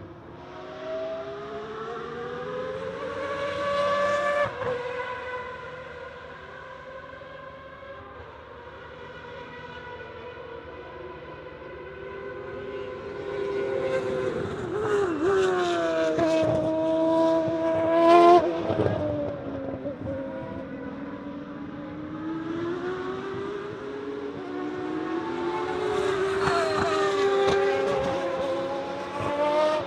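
1992 Formula 1 cars with 3.5-litre naturally aspirated engines pass one after another at high revs. Each engine note climbs as a car approaches and drops away as it goes by. There are three main passes, the loudest just past the middle.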